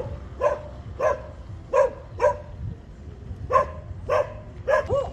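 A dog barking repeatedly: short, separate barks in irregular runs, with a pause of about a second in the middle.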